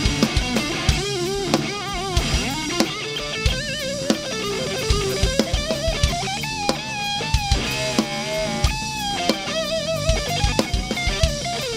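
Live rock band playing an instrumental stretch: an electric guitar plays a lead line of bent notes with wide vibrato over a driving drum kit with steady kick-drum hits.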